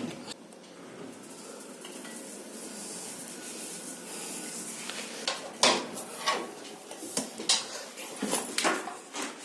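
A steady low running noise, then from about halfway a rapid, uneven series of sharp metallic clanks and clicks.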